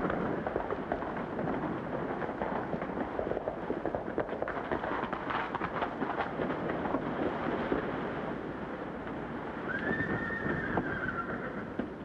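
Hoofbeats of several horses ridden at speed on a dirt street, a dense clatter, with a brief high whinny about ten seconds in.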